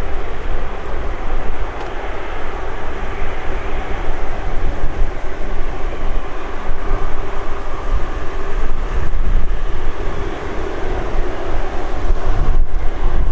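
Turbofan engines of a taxiing Embraer regional jet running at taxi idle: a steady rushing drone with a faint held tone. Wind rumble on the microphone sits underneath.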